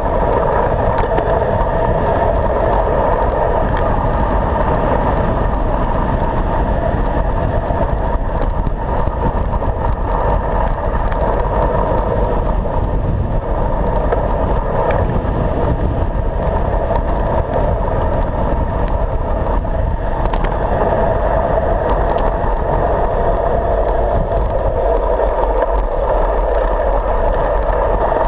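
Steady, muffled rush of wind and tyre-on-road noise picked up by a handlebar-mounted action camera on a fast road-bike descent, with a few small clicks from bumps in the road.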